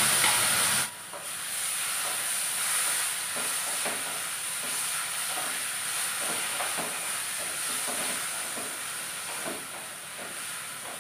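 Brinjal and carrots frying in a hot oiled kadai: a steady sizzle, loud at first and cutting down suddenly about a second in. Then a spatula scrapes and stirs through the frying vegetables in short, irregular strokes over the continuing sizzle.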